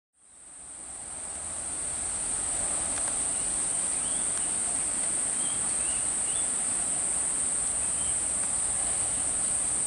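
Steady high-pitched insect chorus, fading in over the first second or so after a cut, with a few faint short chirps over it.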